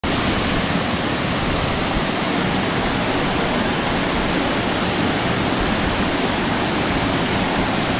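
Waterfall: a steady, loud rush of falling water that cuts off suddenly at the end.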